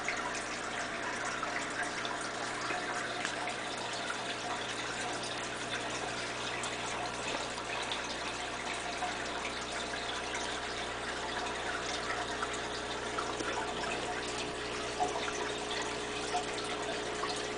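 Aquarium water trickling and splashing steadily, with a faint steady hum underneath.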